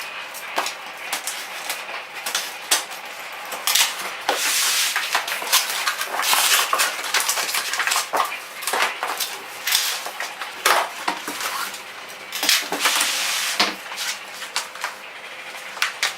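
Clinking and knocking of powder-coated iron table parts being handled, with rustling of packaging; many irregular sharp clicks.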